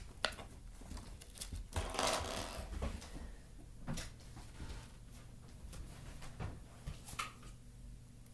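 Scattered light knocks and clicks, with a brief rustle of fabric about two seconds in: handling and movement on a bed with bedding.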